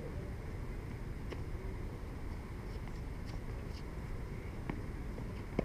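Tennis balls struck with rackets: a few faint sharp knocks about two seconds apart, the last and loudest near the end, over a steady low rumble.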